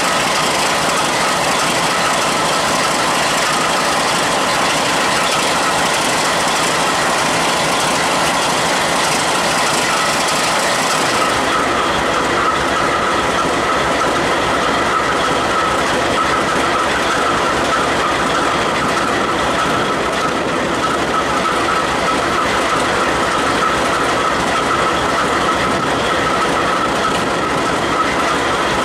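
Diesel freight train rolling through, with a steady rumble of wheels on rail. After about eleven seconds a high steady wheel squeal comes up over the running noise.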